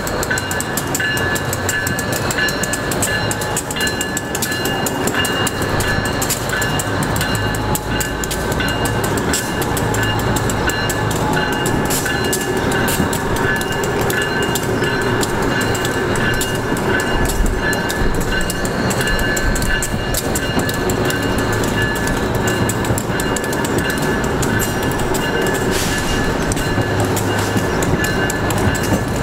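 A string of Budd R32 subway cars towed by a diesel switcher rolls slowly past. It makes a steady rumble with rapid wheel clicks over the track and steady high-pitched squealing tones.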